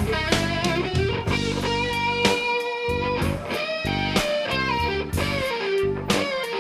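Blues band music: an electric guitar carries sustained, bending notes over bass and drum hits.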